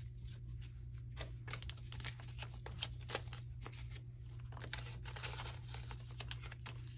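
Paper cards and plastic binder pockets rustling and crinkling as they are handled, with light scratches and taps of a felt-tip marker on card. A steady low hum runs underneath.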